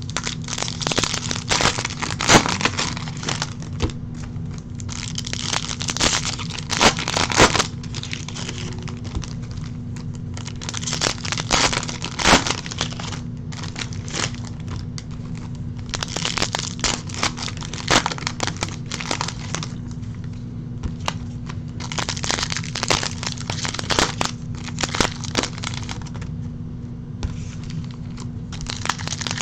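Foil wrappers of 2020 Topps Chrome trading-card packs being torn open and crinkled in handfuls, with irregular crackles and snaps, over a steady low hum.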